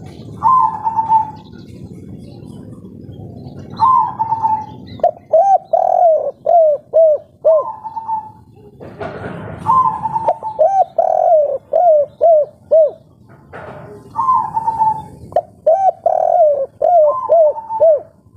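Spotted dove (tekukur) singing its 'kuk 3' song: phrases of cooing, each a higher held note followed by a run of short, falling coos, repeated three times.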